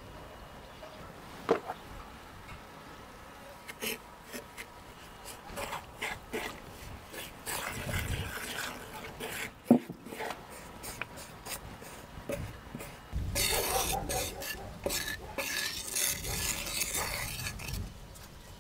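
Wooden spoon stirring and scraping a paprika-and-oil spice mix around a terracotta bowl, with scattered clicks and a sharp knock of spoon on bowl about ten seconds in, and a stretch of denser scraping in the second half.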